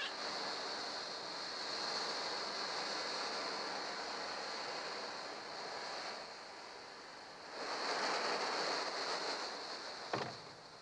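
Steady rushing, wind-and-surf-like hiss that swells again for a couple of seconds about three-quarters of the way through, with one short falling cry near the end.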